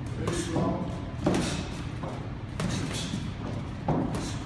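Several sharp thuds and slaps from two boxers sparring in a ring: gloved punches landing and feet on the ring canvas.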